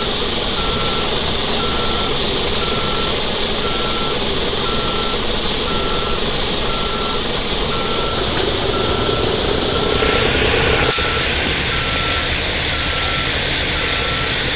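Truck reversing alarm beeping steadily about once a second over the loud, steady running of an Isuzu Giga's diesel engine under full load. The engine note shifts about ten seconds in.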